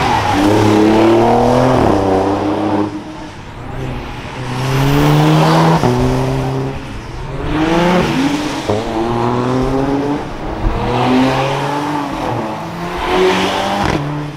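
Performance car engines revving hard and accelerating past, the engine note climbing and dropping again several times as the cars shift and go by.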